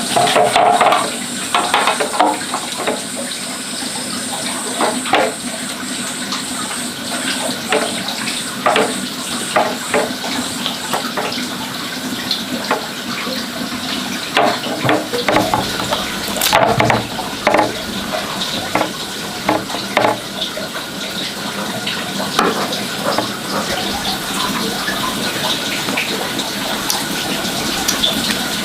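Water running steadily, with frequent short knocks and clatters of things being handled in or near it.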